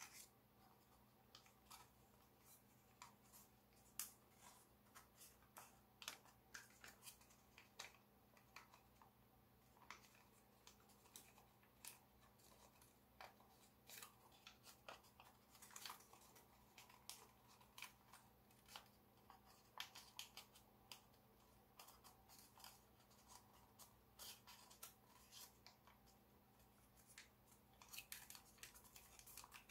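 Origami paper being folded and creased by hand: faint, irregular crinkles and crackles of the paper.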